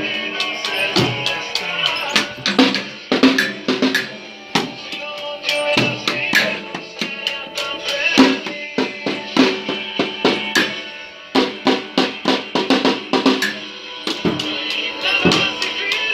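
A makeshift drum kit played fast with wooden sticks: strikes on an upturned plastic bucket used as a drum, small toms, a bass drum and a cymbal. Recorded music plays along underneath the drumming.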